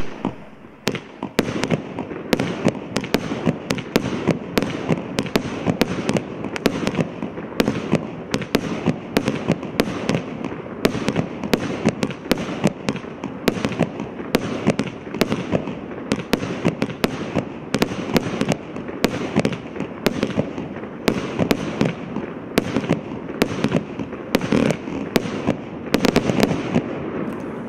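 Hallmark 'Boy or Girl (Pink)' 36-shot firework barrage cake firing. It opens with one very loud bang, then goes on with a steady run of sharp bangs, a little over one a second, over a continuous rushing hiss, until it stops at the end.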